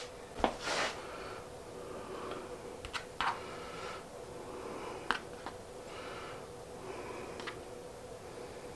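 Light, scattered taps and rustles of pizza toppings, likely mushrooms, being handled and dropped onto the pizzas, over a steady hum.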